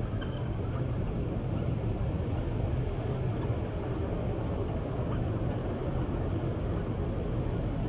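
Steady low outdoor rumble with no distinct events, and a faint short high chirp near the start.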